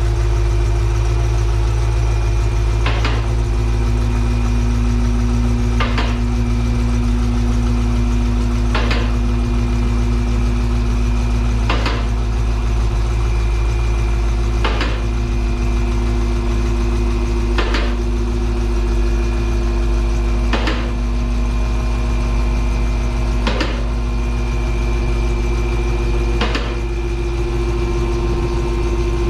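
Steady, loud low machine hum with a few faint held tones, and a sharp tick almost exactly every three seconds.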